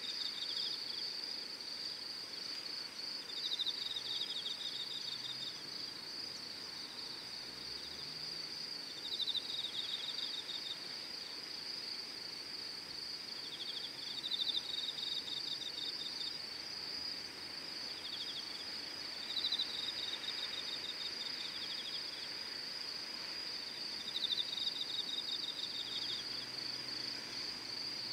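Insects chirring: one steady high-pitched trill throughout, with a second insect's pulsed trills, a second or two long, breaking in every five seconds or so.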